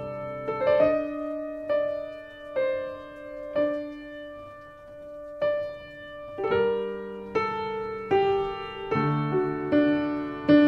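Slow, gentle piano music: notes struck one at a time, roughly a second apart, and left to ring, growing fuller and louder with lower notes about six and a half seconds in.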